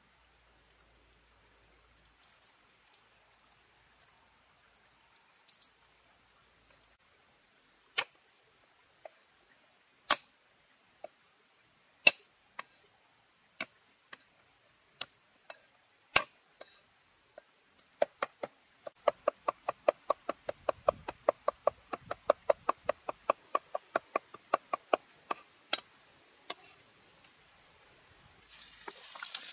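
A knife chopping garlic on a wooden cutting board. First come a few single sharp chops a couple of seconds apart, then a quick run of chopping at about four strokes a second that stops a few seconds before the end. A steady high drone of insects runs underneath.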